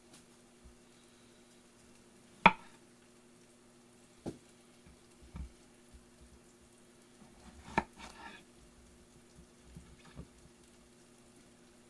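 A kitchen knife knocking on a cutting board a handful of times as a squash is cut up, spaced unevenly, the sharpest knock about two and a half seconds in. A low steady hum runs underneath.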